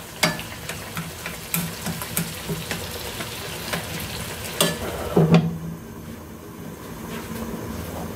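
Wooden chopsticks stirring pork and tomatoes in bubbling broth in a nonstick wok, knocking against the pan every half second or so. About five seconds in comes the loudest knock, as a glass lid goes on, and the bubbling then sounds duller under the lid.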